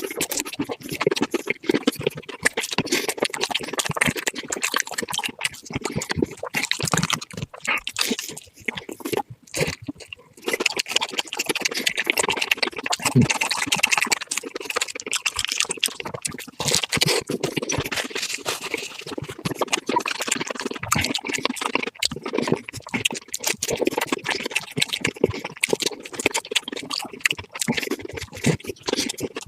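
Eating sounds sped up fourfold: rapid, dense crunching and chewing of fried food.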